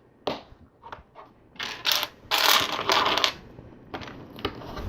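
Loose plastic LEGO pieces clicking and clattering as hands sort through a pile of parts, with a longer rattle of sifting through them in the middle and a few single clicks before and after.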